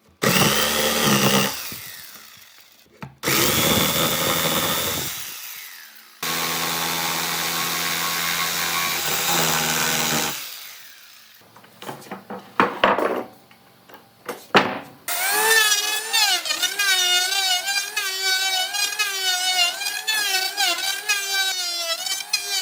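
A handheld power tool working wood in three runs, the longest a steady run of about four seconds, followed by a few scattered knocks. For the last seven seconds, music with a wavering melody takes over.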